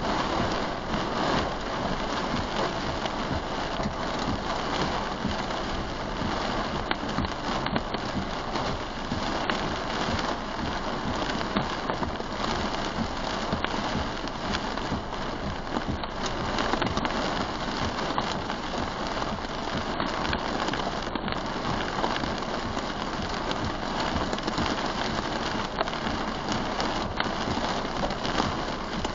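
Heavy rain falling steadily on a storm-chase vehicle's roof and windshield.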